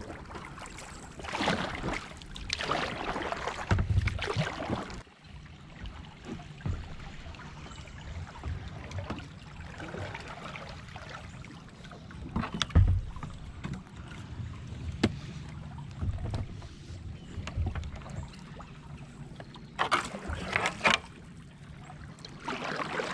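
A kayak being paddled: paddle strokes splashing in the water at an uneven pace, with a few sharp knocks along the way.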